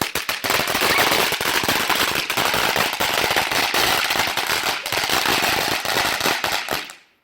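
A cheap $1 consumer firework going off with a rapid, continuous crackling of sharp pops for about seven seconds, then stopping abruptly.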